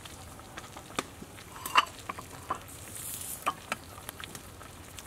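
Metal ladle stirring and scooping in a large metal pot of soup, clinking against the pot several times, the loudest clink about two seconds in.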